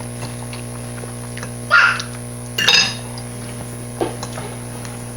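Eating noises at a table: cutlery clinking against dishes, with two louder sharp clinks about two and three seconds in, over a steady electrical hum.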